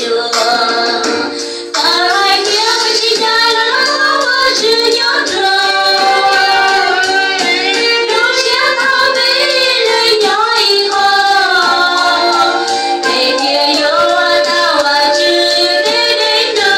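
Two women singing a Hmong hymn of praise to God into microphones, the voices amplified through the church sound system.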